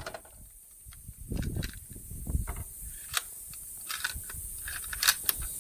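Irregular sharp cracks and clicks from a 5.56 rifle being fired and worked, the loudest crack a little after five seconds in.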